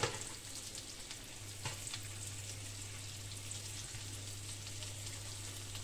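Boiled potatoes frying in olive oil and butter in a pan, a steady sizzle, with a sharp clack of a utensil at the start and another just under two seconds in.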